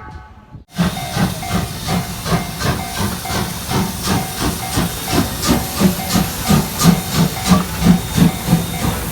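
Steam locomotive running, chuffing about three times a second over a steady hiss; it starts suddenly just under a second in.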